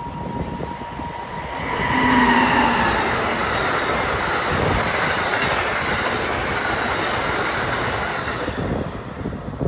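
Amtrak Northeast Regional train passing at speed behind an ACS-64 electric locomotive. A high whine drops in pitch about two seconds in as the locomotive goes by. Then comes a steady rush of wheel-on-rail noise from the Amfleet coaches, which fades near the end.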